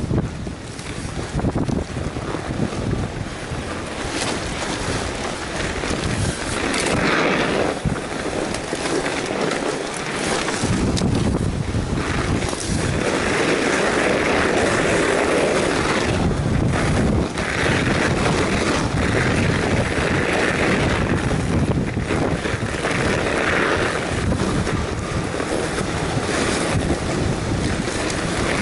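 Wind rushing over the microphone of a camera on a moving Surly fat bike, mixed with the fat tyres rolling over packed snow and occasional knocks from the bike. The rush swells and eases every second or two.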